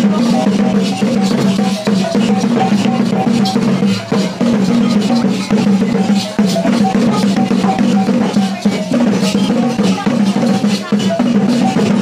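Traditional Dayak Maanyan dance music: drums beating under a fast, steadily repeating pattern of short pitched percussion notes, with crowd voices mixed in.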